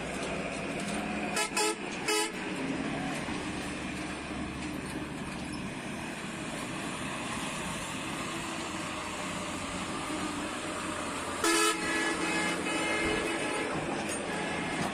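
Diesel truck engines running as loaded trucks climb off a ferry ramp, with three short vehicle-horn toots about a second and a half in. Later comes a longer, louder horn blast that is the loudest sound here.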